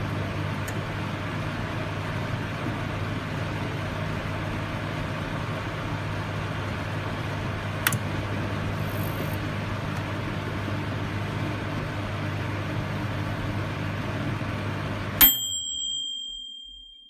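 Microwave oven running with a steady hum, with one short click about eight seconds in. Near the end the hum cuts off suddenly and a single high end-of-cycle tone rings and fades as the oven stops.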